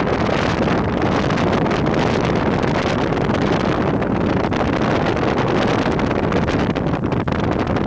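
Sightseeing motorboat running steadily under way, its engine noise mixed with rushing water and wind buffeting the microphone.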